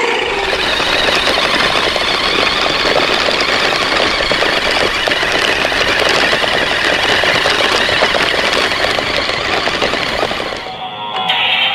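Battery-powered RC monster truck driving: the motor and gears buzz, and the plastic chassis and tyres give a dense, continuous rattle. It stops near the end.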